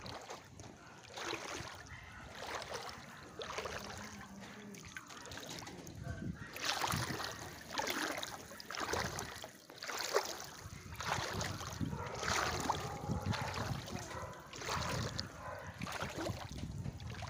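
A person wading through knee-deep floodwater, the water swishing and splashing around the legs with each stride, about one stride a second.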